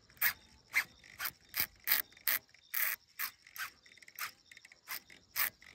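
Shimano baitcasting reel's drag clicking in single, uneven ticks, about two a second, as a fish slowly pulls line off the spool.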